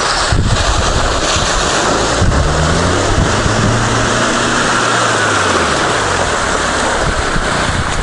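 Lada Samara hatchback fording a shallow river: its engine pulls under load, rising and then falling in pitch, over the rush and splash of water pushed aside by the car. Wind buffets the microphone.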